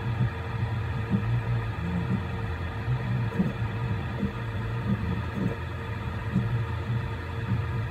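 Voron 3D printer running mid-print: a steady hum with short, irregular pulses from its motors as they move the print head in small strokes.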